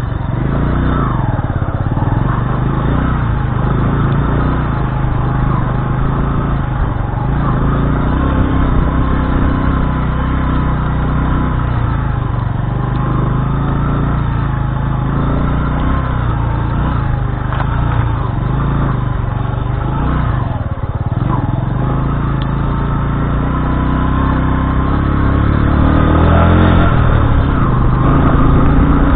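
Bajaj Boxer's single-cylinder four-stroke engine running as the motorcycle is ridden along a muddy, rutted dirt track, its note rising and falling with the throttle and growing louder near the end.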